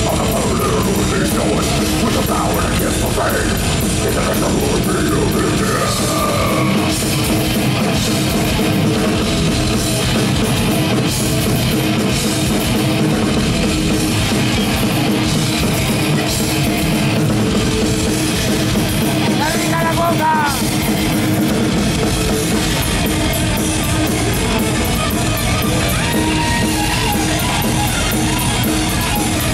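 Death metal band playing live at full volume: distorted electric guitars, bass and a drum kit, recorded from the crowd.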